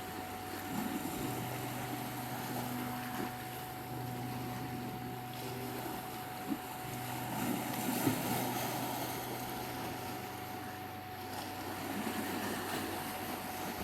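Soft meditation music of slow, held low notes under a constant pure 741 Hz tone, over the steady wash of sea waves.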